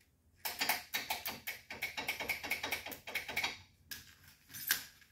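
A car engine on a test stand being turned over by its starter: a fast, even run of clicking chugs for about three seconds, then a short second burst near the end, without the engine catching.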